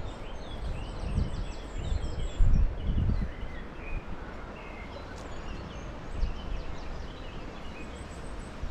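Small birds chirping at intervals over a steady outdoor background noise, with a few dull low bumps in the first three seconds.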